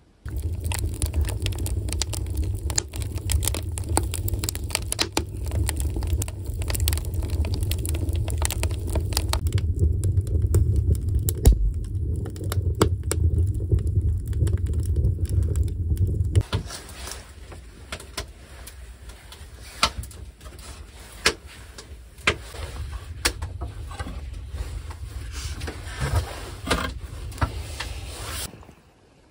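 Wood fire burning in a sauna stove's firebox: a steady low roar of the draft with crackling and popping, which stops about sixteen seconds in. After that, quieter rustling and light knocks of things being handled.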